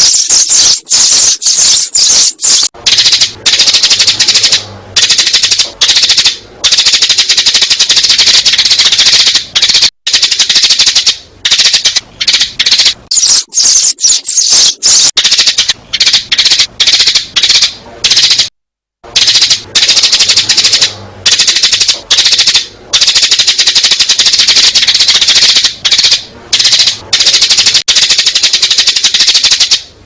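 A flock of sparrows chirping in a loud, fast, unbroken chatter, with a few short gaps and one brief break a little past halfway. It is a sparrow lure recording of the kind played to draw sparrows into a trap.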